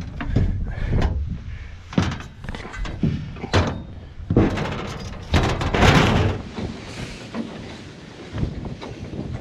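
Irregular knocks, clunks and a rustling scrape, the sound of hands working on metal parts of a combine while checking a broken auger drive.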